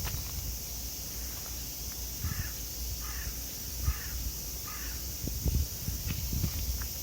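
A crow cawing four times in an even series, about a call every second, with a few low thumps near the end.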